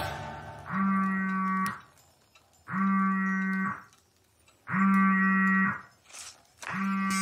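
Electronic ringing tone of an incoming call: a steady buzz about a second long, repeating four times with a second's pause between each ring.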